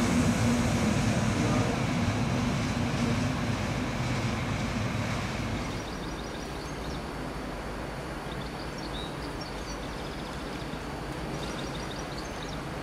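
Red DB electric locomotive hauling double-deck passenger coaches runs along the station track with a steady low hum and rolling noise, gradually fading. About six seconds in it cuts off suddenly to a quieter steady background with groups of faint high chirps.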